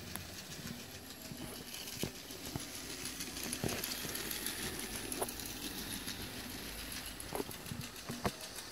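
Battery-powered toy train set running on plastic track: the locomotive's small motor makes a faint steady whir with fine rapid ticking, and a few sharper clicks come every couple of seconds.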